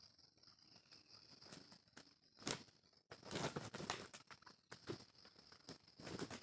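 Junglefowl roosters fighting: bursts of wing flapping and scuffling on dry ground, one sharp burst about two and a half seconds in, a dense flurry a second later and another near the end.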